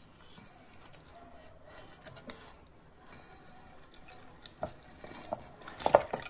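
Watermelon chunks tipped from a steel bowl into a steel mixer-grinder jar: soft knocks of fruit dropping and clinks of the bowl against the jar, the loudest knocks near the end.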